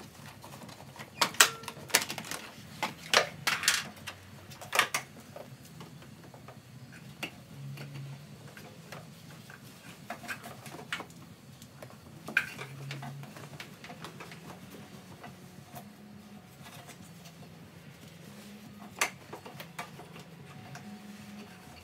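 Irregular sharp clicks and rattles of hands working a power cable in under plastic interior trim panels, most of them in the first five seconds, with a faint low hum beneath.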